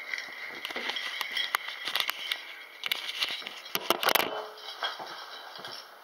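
Handling noise on the camera's microphone: rubbing, scraping and clicking as the camera is moved about, with a louder cluster of knocks about four seconds in as it is set down.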